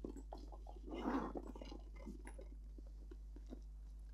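A small faux-leather backpack being handled and turned over: soft rustling with small clicks and ticks of its metal zipper pulls and hardware, a louder rustle about a second in, then only scattered ticks.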